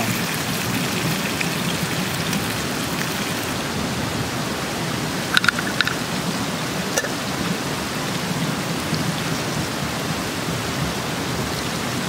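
Steady rushing noise of water, even and unbroken, with a few light clicks about five and a half and seven seconds in.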